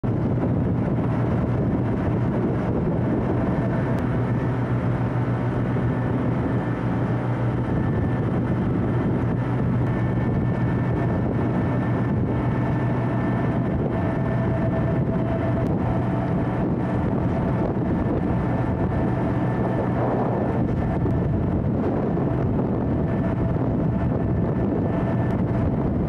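A boat's engine running steadily under way, a constant low hum with a rush of wind and water over it.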